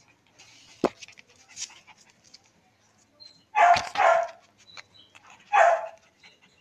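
Excited puppy barking: two quick barks a little past halfway and one more near the end. A sharp knock and rustling come about a second in.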